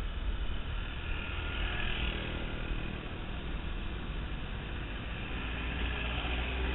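Road traffic passing close by, cars and motorcycles going past in the next lane, over a steady low rumble from a moving recumbent trike. The traffic swells about two seconds in and again near the end.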